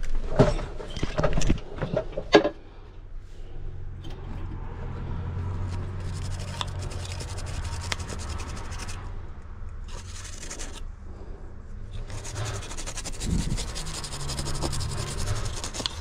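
Brush bristles scrubbing corrosion off the pins and solder side of a car module's circuit board, in bouts of scratchy rubbing over a steady low hum. The first couple of seconds hold clatter and knocks as the board is handled.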